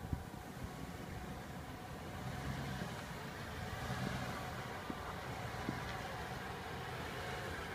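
Jeep Commander SUV engine running at low revs as it crawls over a rutted off-road trail, slowly growing louder as it comes closer, with a few light knocks.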